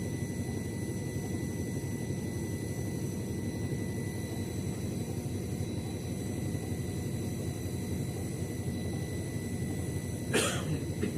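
Washing machine running steadily with a dense low rumble. About ten seconds in there is a brief sharp scraping or clatter.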